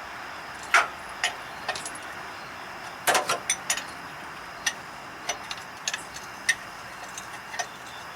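Irregular sharp metallic clicks and clinks of hand tools and bolts, with a quick cluster about three seconds in and scattered single taps through the rest, as bolts are started into the hydraulic pump's mounting.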